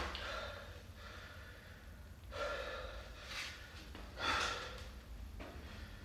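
A man breathing hard, winded from lifting a heavy sandbag: after a quiet second or two, four short, heavy breaths in and out from about two seconds in.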